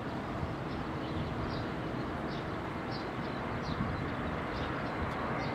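Distant Airbus A320-232 with IAE V2500 engines on final approach, its jet noise heard as a steady even rumble and hiss. Faint short high chirps repeat throughout.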